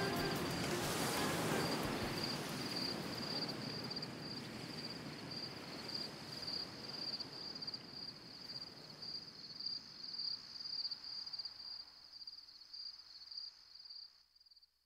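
A high, steady cricket-like trill with a fast flickering pulse closes a piano and percussion duo piece, over a soft wash that gradually fades. The sound drops out sharply about a second before the end.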